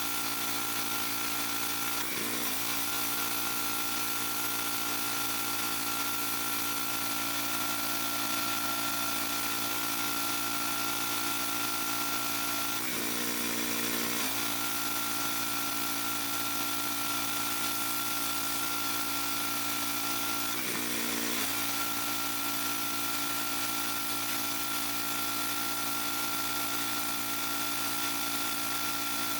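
Pressure washer running steadily, its pitch dipping briefly three times.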